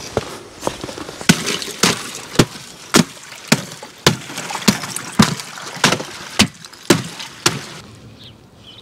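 A regular series of sharp knocks, just under two a second, each one short and crisp; they stop about a second before the end.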